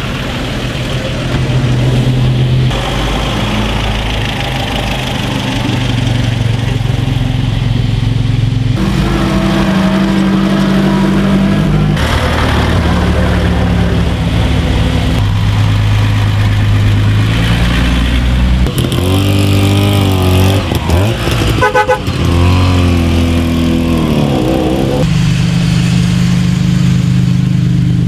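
Engines of classic cars driving slowly past one after another, each car's note steady and low, changing abruptly several times as the picture cuts. About two-thirds through, a wavering pitched sound rises and falls for a few seconds.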